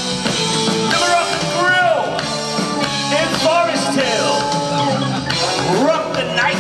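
A live rock band playing, with drums, guitars and keyboards, and pitch bends sliding up and down over a steady beat.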